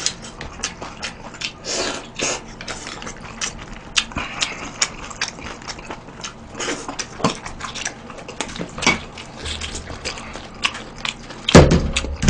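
A man eating jjamppong noodles close to the microphone: slurping and chewing with many wet smacks and clicks. Near the end, a loud knock as a bowl is set down on the table.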